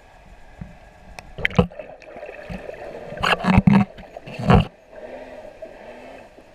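Underwater sound of water gurgling and rushing around a camera held by a freediver, with three loud bubbling surges: one about a second and a half in, a longer one around three and a half seconds, and a short one near four and a half seconds.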